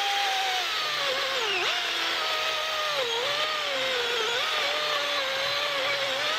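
DeWalt 60-volt brushless battery chainsaw cutting through a log: the electric motor's whine drops in pitch about half a second in as the chain bites into the wood, then dips briefly a few times under load, over the rasp of the chain through the wood.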